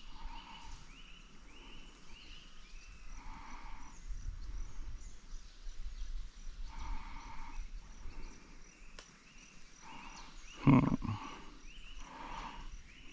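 Animal calls from the surrounding forest, repeating every couple of seconds, with a bird chirping in short repeated notes. A single louder knock comes about eleven seconds in.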